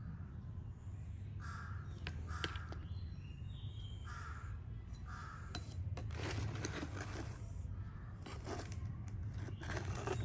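Crows cawing: a few short, harsh calls in the first half. About six seconds in comes a longer scuffling, rustling noise, and a low hum runs underneath.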